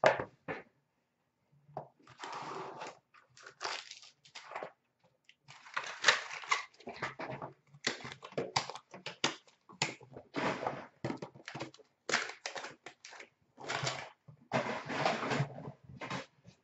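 Hockey card box and pack packaging being torn open and handled: irregular bursts of crinkling plastic wrap and rustling cardboard, with short quiet gaps between.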